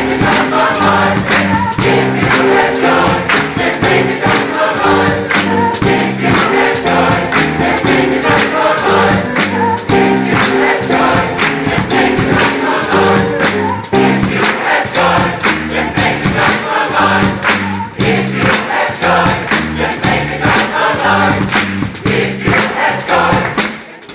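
Choir singing gospel music over a band with a steady driving beat, played loud through a PA. The music cuts off at the very end.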